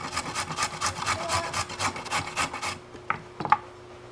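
A carrot being grated on a stainless steel box grater: quick, even rasping strokes, about five a second, that stop a little over halfway through, followed by two sharp knocks.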